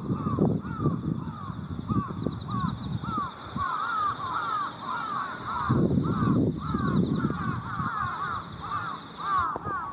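A flock of crows, a mixed gathering of jungle crows and carrion crows, cawing over one another in a constant cacophony of short repeated calls. A low rumble swells underneath, loudest about six seconds in.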